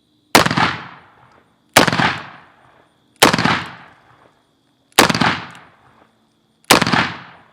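Five shots from a Smith & Wesson 500 revolver (.500 S&W Magnum), fired about one and a half seconds apart, each echoing out over about a second.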